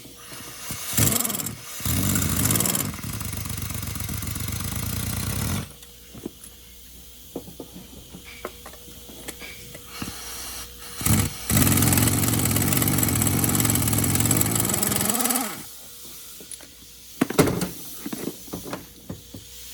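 A pneumatic ratchet or impact gun running in two bursts of about four to five seconds each, spinning spark plugs in the engine's heads. A few short clicks and knocks of tools follow the second burst.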